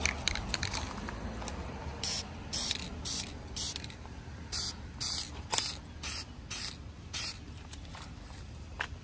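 Aerosol spray paint can sprayed in short hissing bursts, roughly two a second, laying a first light coat on a polymer pistol grip. A quick run of sharp clicks comes before the spraying starts.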